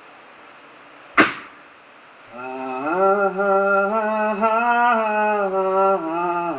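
A sharp percussive hit about a second in, then a man's voice chanting a slow wordless melody in long held notes that shift in small steps of pitch.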